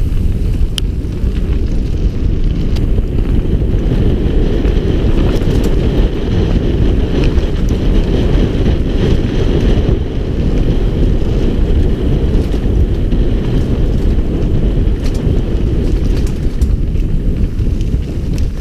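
Wind buffeting the handlebar-mounted camera's microphone as a mountain bike descends a dirt trail at speed: a loud, steady rumble, with a few faint clicks and rattles from the bike over the trail.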